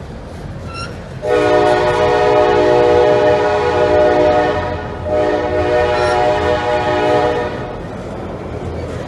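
Double-stack intermodal freight train rolling past with a steady rumble of wheels on rail. Over it, a multi-note locomotive air horn sounds two long blasts, starting about a second in and again about five seconds in, the second a little shorter.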